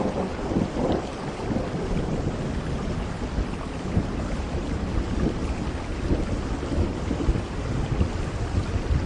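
Steady rain with a low, continuous rumble of thunder underneath, and no single sharp crack.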